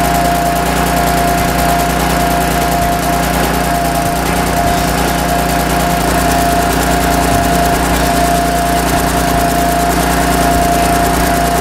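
Skid sprayer's diaphragm pump running loud and steady with a constant whine, working with a defective intake valve and then a defective discharge valve that sets the agitation line shaking.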